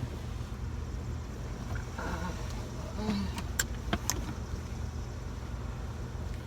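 Steady low rumble of a car heard from inside its cabin, with a faint voice briefly about two seconds in and a few sharp clicks a little past the middle.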